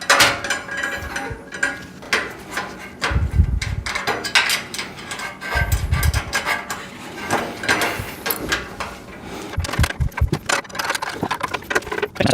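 Metal rack parts being handled and fitted together during assembly: irregular clicks, clinks and knocks, with two low thumps about three and six seconds in.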